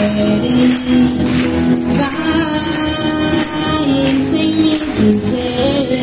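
Music playing steadily, with a sustained melody and bright, jingling high percussion.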